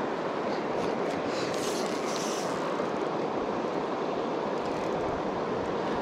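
Steady rushing of river water around a drift boat, with a brief higher hiss about two seconds in.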